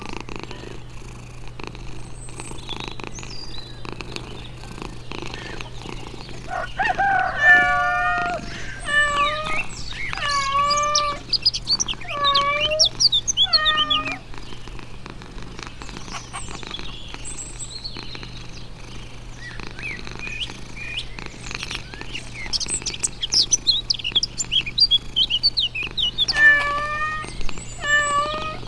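Domestic cat meowing repeatedly: a run of about five meows about a quarter of the way in, and about three more near the end, over a steady low hum. In between come high, thin squeaky cries.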